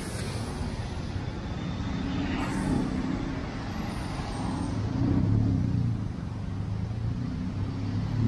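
Motor vehicle engine running in road traffic, its low hum growing louder about five seconds in.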